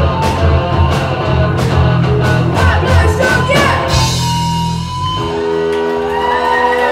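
Young rock band playing live: electric guitar, bass and drums on a steady beat with a boy singing into the microphone. About four to five seconds in the drums stop and a final held chord rings out.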